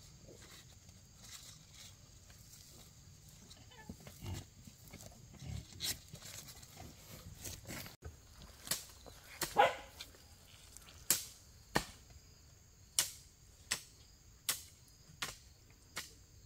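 A hoe chopping into damp soil in steady strokes, about one every three-quarters of a second, starting about halfway in. Among the strokes, about nine and a half seconds in, comes a single loud, short animal call. In the first half there are only a few soft thuds of soil being pressed down by hand.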